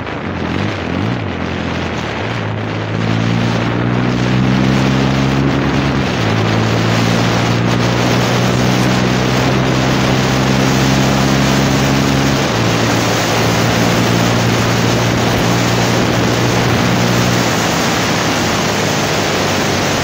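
TVS Raider 125 single-cylinder engine running through an aftermarket exhaust while the motorcycle is ridden. The engine note holds steady and shifts pitch a few times, under a steady rush of wind over the microphone.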